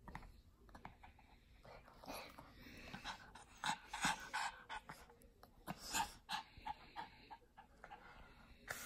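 Small dog panting in short, uneven breaths, with a few louder huffs about four and six seconds in.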